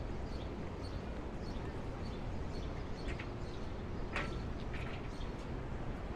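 City street ambience: a steady low traffic hum with small birds chirping over it, and a brief sharper click about four seconds in.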